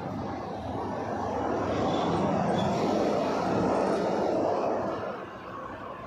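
A road vehicle passing close by on a city street, its engine and tyre noise swelling and then fading about five seconds in.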